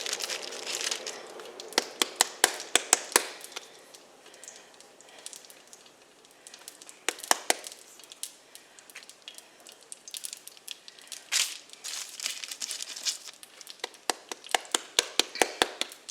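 Hot oil and butter in a frying pan crackling and spitting with sharp pops in clusters, with a few brief sizzles as pieces of dough are laid into the fat.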